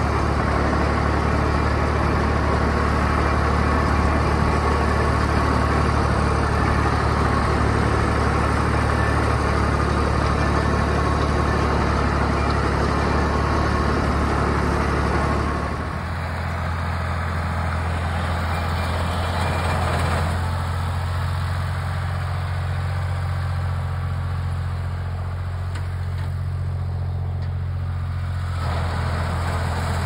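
Ford tractor engine running steadily while pulling a working John Deere 410 round baler. It is heard close up at first, then farther off from about halfway through, quieter and duller.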